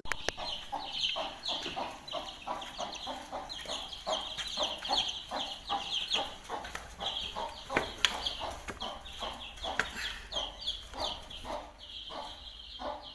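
Chickens calling: a dense run of short, high peeps with lower clucks mixed in.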